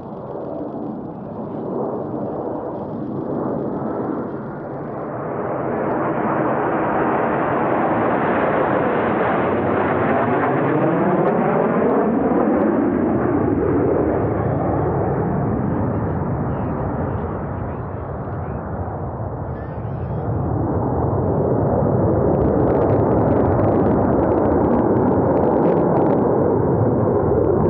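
Blue Angels F/A-18 Super Hornet jets flying past, their engine noise swelling and sweeping overhead from about five seconds in. The noise dips briefly before rising again with another pass.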